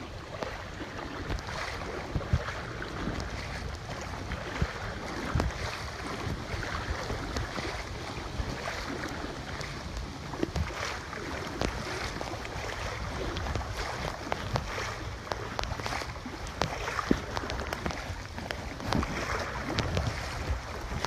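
Legs wading through knee-deep floodwater in a street, with irregular splashing and sloshing at each stride.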